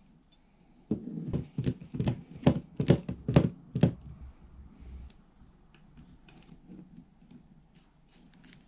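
Hard plastic drill-guide base and steel guide rods knocking and clacking together as they are handled and fitted: a quick run of knocks for about three seconds, then a few faint clicks.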